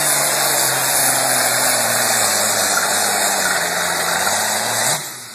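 Diesel engine of a pulling tractor running hard under load as it drags a weight sled, with a heavy roar over a low engine note that slowly drops in pitch. The sound cuts off abruptly about five seconds in.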